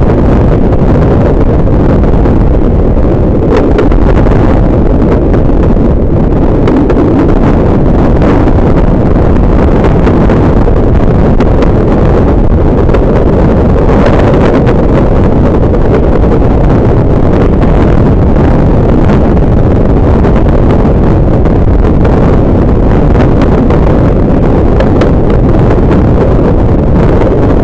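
Wind buffeting the microphone at the open window of a moving passenger train, with the train's running noise underneath. The noise is loud and steady, with no clear beat.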